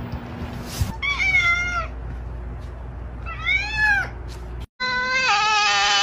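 Domestic cats meowing: two short meows that rise and fall in pitch, then, after an abrupt cut, a black-and-white cat's long, loud drawn-out yowl that shifts pitch in steps.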